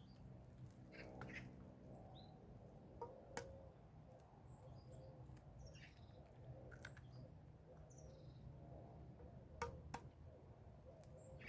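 Faint birds chirping, with scattered short high calls, and two pairs of sharp clicks, one about three seconds in and one near the end.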